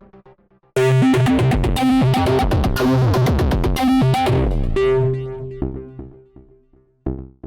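Access Virus TI–style synth patch from the OsTirus emulation plugin, playing a bright, fast-moving phrase of rapidly changing notes that starts about a second in and fades out a few seconds later. A short new note sounds near the end.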